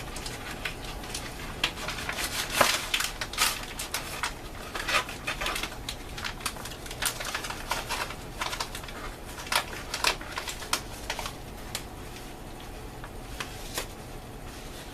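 Plastic MRE ration-heater pouch and cardboard carton being handled, crinkling and rustling in a run of irregular crackles that thins out after about eleven seconds.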